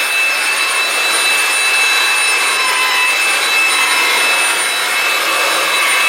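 Dreame V9 cordless stick vacuum cleaner running steadily: a rush of air with a high, steady motor whine on top.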